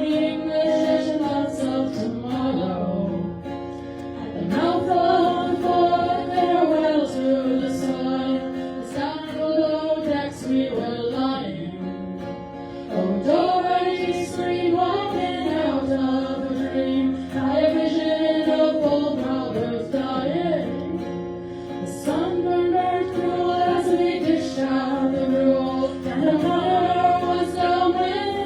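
Live song: female voices singing together, accompanied by a plucked string instrument.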